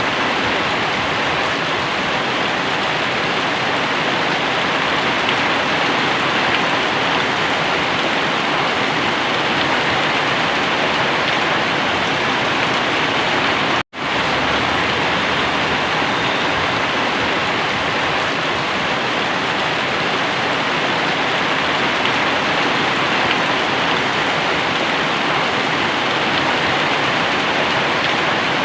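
Very heavy rain pouring down in a dense, steady hiss. It cuts out for an instant about halfway through.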